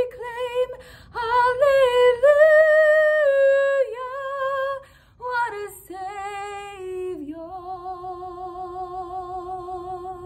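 A woman singing a hymn solo and unaccompanied, her voice wavering with vibrato; after a few short phrases she holds one long note through the second half.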